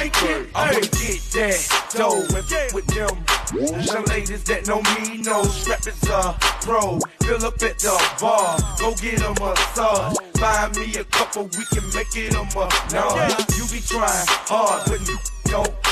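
Southern hip hop track playing in a DJ mix, with a deep bass note hitting about once a second under the beat.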